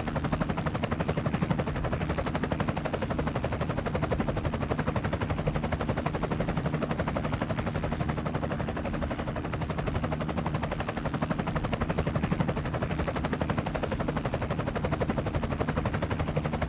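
Helicopter rotor and turbine heard from aboard during aerial filming: a steady, rapid chop of the blades over a constant engine hum, with a faint high turbine whine.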